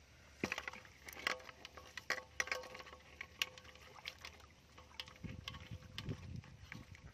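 A caught fish dropped into a metal basin and splashing about, giving a run of sharp slaps and knocks over the first few seconds, then hands sloshing and groping in shallow muddy rice-field water near the end. A faint steady hum runs underneath.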